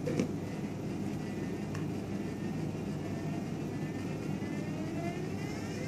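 Stepper motor driving the pointer arm of a 3D-printed model through a speed-test step pattern: a whine of several tones that climbs in pitch through the second half as the motor speeds up, over a steady low hum, with a click about two seconds in.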